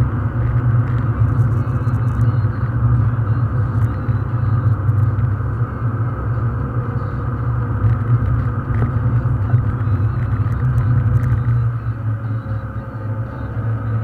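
Steady low rumble of a car's engine and tyres on the road at cruising speed, heard from inside the cabin.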